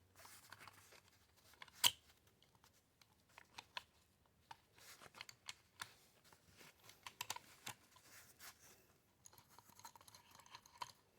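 Faint, scattered small clicks and scrapes of a tool and parts being worked on an AR-style rifle's lower receiver as the pistol grip is pried loose, with one sharper click about two seconds in.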